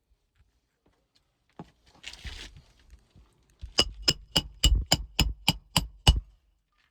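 Roofing hammer striking a steel roof snake to drive a roofing nail under a shingle: nine sharp, ringing metallic blows at about three a second, after a brief scraping rustle about two seconds in.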